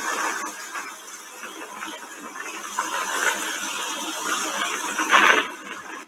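Sea waves washing against rocks, a steady rush of surf that dies down after the first second and swells again, with a louder splash about five seconds in.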